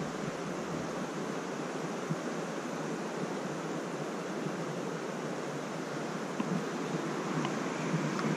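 Steady, even rushing background noise outdoors, with a few faint ticks.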